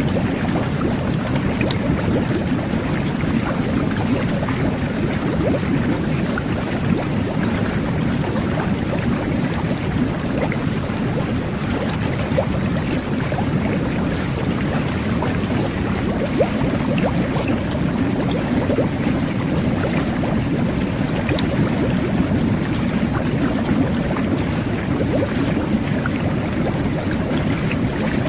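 Jet bath (whirlpool tub) running: water jets and air bubbles churning the bathwater in a steady, even bubbling, with scattered small pops.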